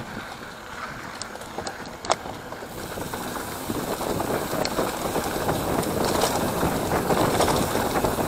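Mountain bike running down a rough dirt singletrack: tyre noise on the dirt and the bike rattling over the bumps. There are a few sharp clicks, the loudest about two seconds in, and the rattle grows denser and louder from about three seconds in.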